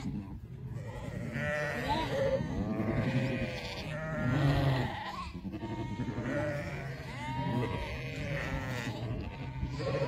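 A flock of sheep bleating, many overlapping calls of different pitches going on all the time.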